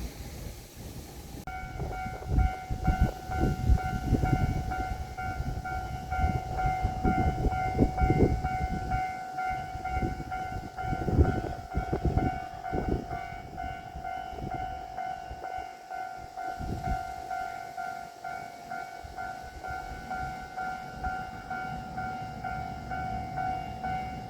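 Japanese railway level-crossing alarm starts about a second and a half in and keeps ringing with its repeating electronic 'kan-kan' tone. Through the first half there is heavy low rumbling with thumps under it, which then eases off.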